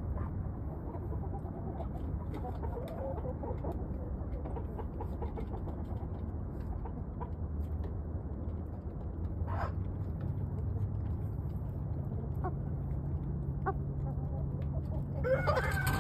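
Chickens clucking faintly over a steady low hum. Near the end a louder, drawn-out chicken call starts, bending in pitch.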